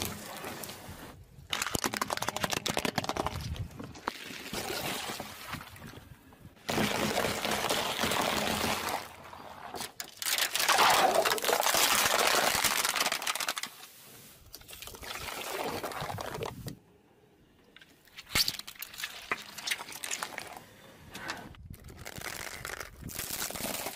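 A car tyre rolling slowly over objects and crushing them one after another, in several short separate takes: a bundle of matchsticks cracking, then plastic cups of liquid bursting and splashing out, the loudest part, just before the middle. Near the end, soft squishy toys are pressed flat.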